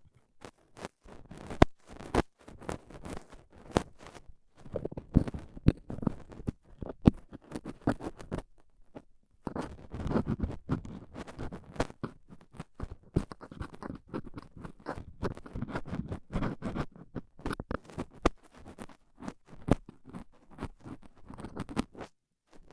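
Stainless steel dental tool scraping and picking inside an ear canal, heard close up: irregular scratchy crackles and sharp clicks as dry earwax is worked loose, with a brief pause partway through.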